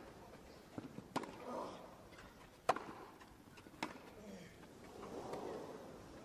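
Tennis rally: a tennis ball struck by racquets, three clear sharp pocks roughly one to one and a half seconds apart, with a soft crowd murmur building near the end.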